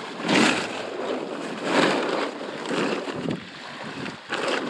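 Wind on the microphone and choppy water splashing around a small boat, with about four louder surges of splash and gust.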